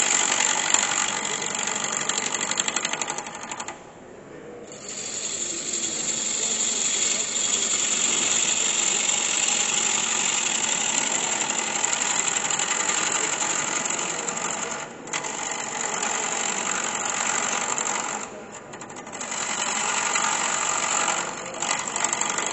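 Wood lathe turning, a gouge cutting into the spinning wooden blank: a loud rasping hiss of shavings with a fast regular pulsing. It breaks off briefly a few times as the tool lifts from the wood and goes back in.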